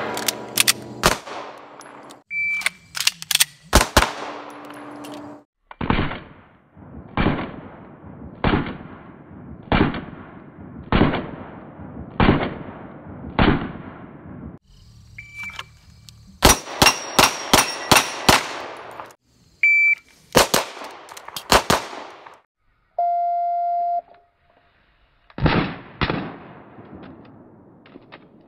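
Beretta 92 Elite LTT 9mm pistol firing: single shots about a second apart, then fast strings. Short electronic beeps, a shot timer's start signal, come before several of the strings.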